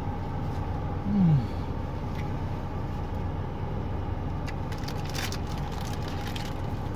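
Steady low hum of a motor vehicle running, with a short low hum of a man's voice about a second in and a few faint crackles near the middle.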